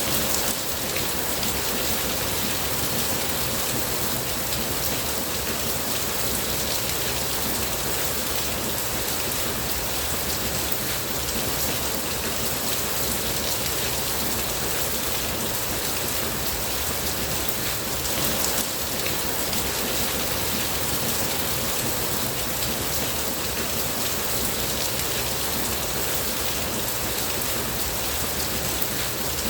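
Steady rain falling on a surface, a dense even hiss with many fine drop ticks.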